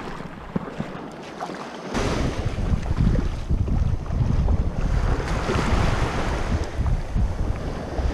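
Wind buffeting the camera microphone over small surf washing in, the low rumble of the wind coming on strongly about two seconds in.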